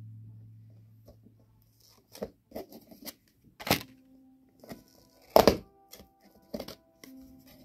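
Hands handling enamel pins, rubber pin backs and paper backing cards on a cardboard box: a series of sharp clicks and taps at irregular intervals, the loudest about five and a half seconds in. Soft background music with held notes plays underneath.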